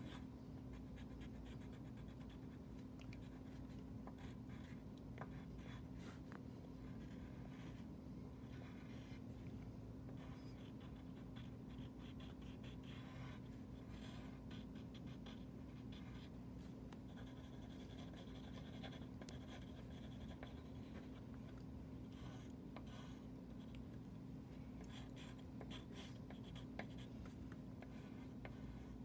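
Wooden graphite pencil sketching on a sheet of paper: faint, irregular scratching strokes with brief pauses, over a steady low hum.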